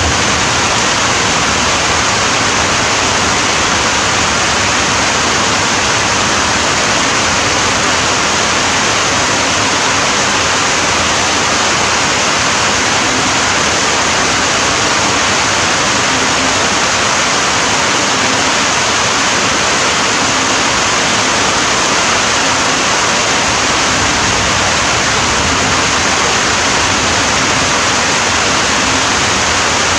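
Steady rain falling, a loud, even hiss that does not change, with no single drops standing out.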